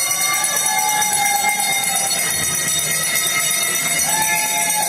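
A steady, high-pitched metallic ringing that starts and stops abruptly, over the rink's background noise.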